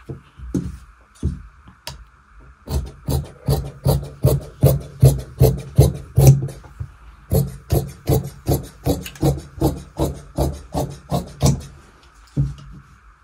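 Tailor's scissors cutting blouse fabric in a steady run of quick snips, about three a second, starting a few seconds in after a couple of isolated cuts.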